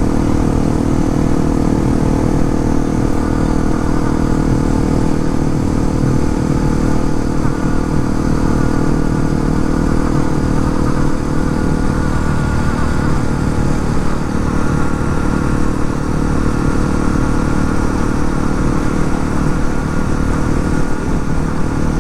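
2018 Honda CRF250L's single-cylinder four-stroke engine running steadily on the move, its pitch holding nearly level.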